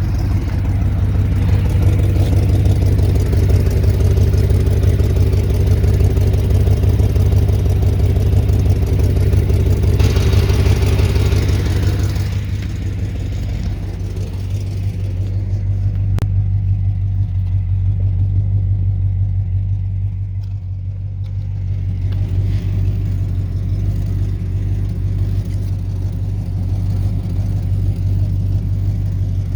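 1996 Impala SS's 5.7-litre LT1 V8 running with an exhaust leak, a loud, steady low drone. About twelve seconds in the higher hiss drops away, and a single sharp click comes a few seconds later.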